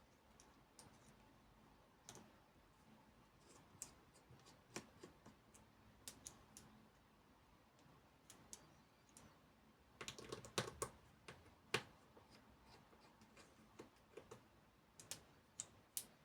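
Small metal tools clicking and tapping on an iPhone 8 Plus during disassembly. The clicks are faint and scattered, with a busier run of them about ten seconds in.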